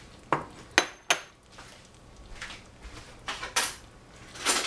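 Kitchenware clattering: three sharp clinks with brief ringing in the first second or so, then rougher clatter as a ceramic bowl is set down on the stovetop.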